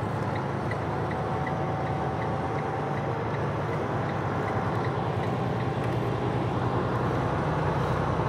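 Semi truck's diesel engine and tyre noise heard inside the cab while cruising on the highway, a steady drone that slowly grows louder.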